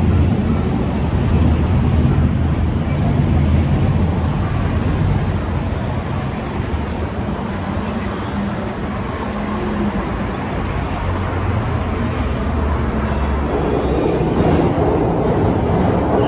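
City street traffic: motor vehicles running past with a steady low rumble.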